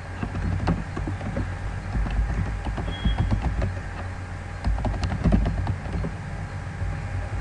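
Computer keyboard typing: irregular runs of key clicks over a low steady hum.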